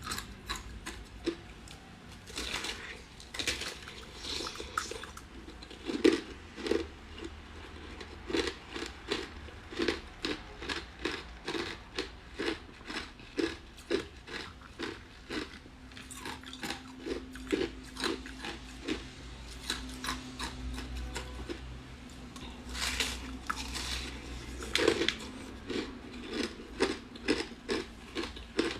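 Ice being bitten and chewed close to the microphone: a steady run of sharp, crisp crunches, about one or two a second.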